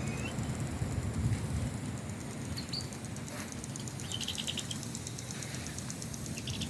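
Outdoor ambience: a steady low rumble of wind on the microphone, with a few short bird chirps and a brief rapid trill, over a faint high insect ticking.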